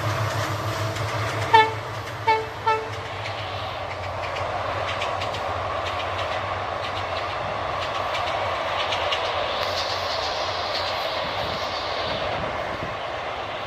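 An Indian Railways EMD diesel locomotive's horn gives three short blasts as it passes, its engine drone fading. The train's coaches then rumble steadily past, with clicks of the wheels over the rail joints.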